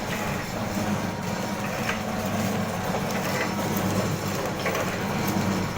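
Automatic volumetric liquid-filling and four-side-seal sachet packing machine running: a steady motor hum with recurring light mechanical clacks as it cycles through forming, filling and sealing sachets.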